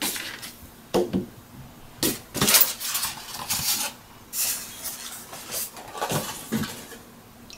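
Polystyrene foam packaging being handled: the foam lid pulled off the lower tray and set aside, a run of short, irregular scraping and rubbing noises.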